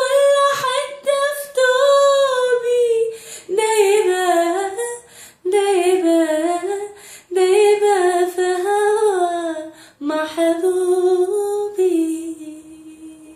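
A woman singing an Arabic song unaccompanied, in long held phrases with ornamented turns in pitch and short breaks for breath between them. The last note fades out near the end.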